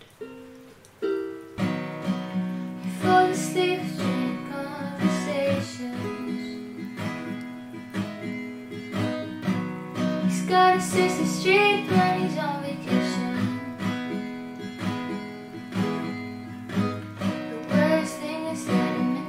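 A woman singing to a strummed acoustic guitar. A few plucked ukulele notes come first, and the guitar and voice come in about a second and a half in.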